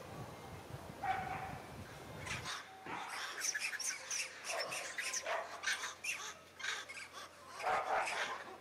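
Short high-pitched animal calls, many in quick succession from about two and a half seconds in, after one lower call about a second in. A low rumble underneath stops suddenly about two and a half seconds in.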